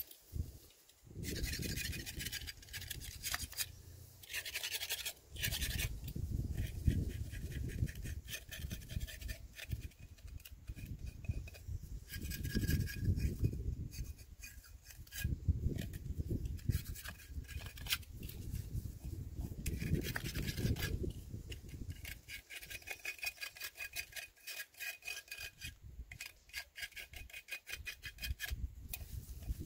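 Repeated hand scraping and rubbing on the rusted metal parts of a submersible well pump, in several runs of quick strokes with short pauses between them.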